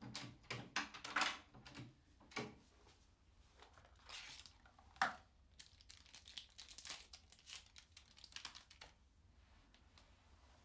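Irregular rustling and crinkling, as of packaging being handled and torn, with scattered sharp clicks and one louder click about five seconds in; it dies away about nine seconds in.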